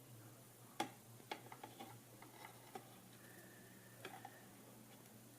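Irregular small clicks and taps from the plastic case and parts of a flip clock radio being handled during reassembly, with one sharper click about a second in.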